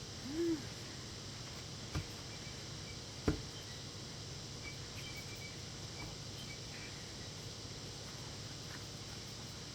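A person eating broccoli gives a short hummed "mm" near the start. Two sharp clicks follow about a second and a half apart, over a steady low background hum.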